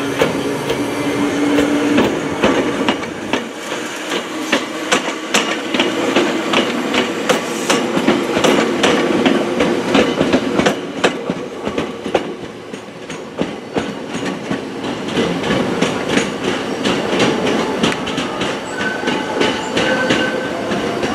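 Former Tokyu two-car electric train pulling out and passing by, its wheels clicking over rail joints and points in a fast, irregular run of clicks over a steady rumble.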